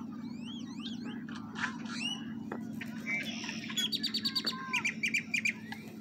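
Several songbirds chirping and calling, with whistled notes that slide up and down and a fast run of sharp, repeated chirps about four seconds in. A steady low hum runs underneath.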